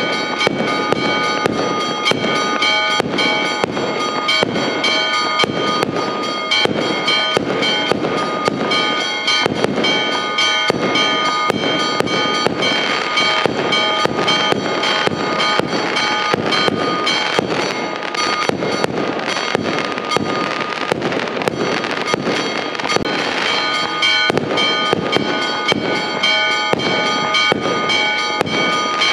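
Aerial fireworks display: a dense, continuous barrage of bangs and crackling from bursting shells, with steady ringing tones underneath.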